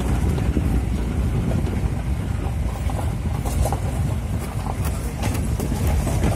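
Open-top safari jeep driving over a gravel forest track: steady low rumble of the vehicle, with scattered rattles and knocks from the body over the bumps around the middle.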